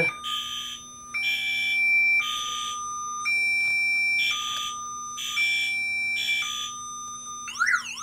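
Directed Electronics 514N car alarm siren cycling through its tone effects. Short buzzing blasts about once a second alternate with steady beeps that step between a high and a lower pitch. Near the end it changes to a fast up-and-down warble.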